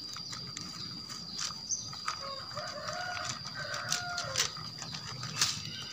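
A rooster crows once in the background, a drawn-out call of about two and a half seconds that falls in pitch at the end, over a steady high-pitched insect drone. Sharp clicks of tent-pole sections being handled and snapped together punctuate it, the loudest a little after five seconds in.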